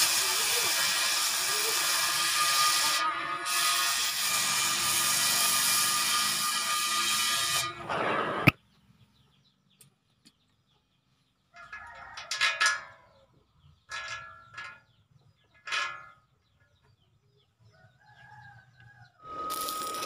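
Gas cutting torch hissing steadily as it burns a hole through the steel tank wall, cutting off sharply about eight and a half seconds in. Chickens then call in short bursts. Near the end an electric arc welder starts crackling.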